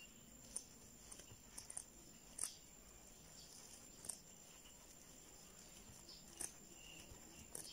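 Faint, irregular soft clicks and rustles of a plastic crochet hook pulling yarn through stitches, over near-silent room tone with a thin, steady high-pitched whine.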